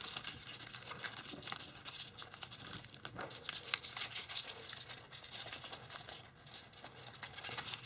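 Tissue foil (tissue paper bonded to kitchen foil) crinkling and crackling under the fingers as it is creased and pressed flat in small reverse folds, a run of irregular crackles, a little busier in the middle.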